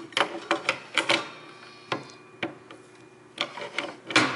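Irregular hard clicks and knocks of a SawStop table saw's plastic table insert being handled and seated into the saw's metal table top, with quieter rubbing between; the loudest knock comes near the end.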